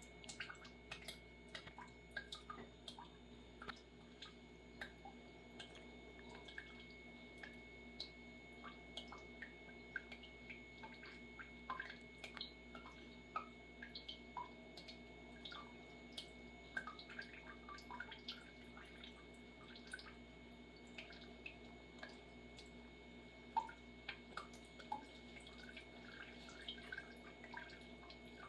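A cat lapping water from a dripping kitchen or bathroom tap: quiet, irregular wet ticks and drips, a few a second, with one louder plop about three-quarters of the way through.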